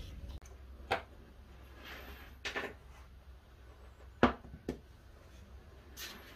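A few short knocks and clunks of a knife being handled and laid down on a workbench, with a brief scrape about two seconds in; the sharpest knock comes a little after four seconds.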